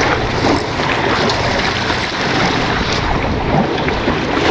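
Sea waves washing and splashing against the rock boulders of a breakwater, with wind buffeting the microphone.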